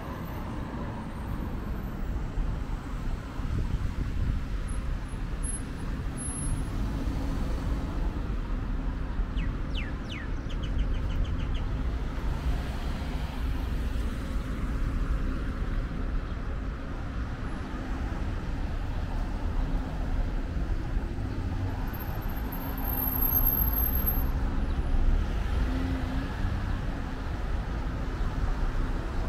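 Urban road traffic: cars driving around a roundabout and passing close by, a steady low rumble that grows louder for a few seconds about three-quarters of the way through as vehicles pass.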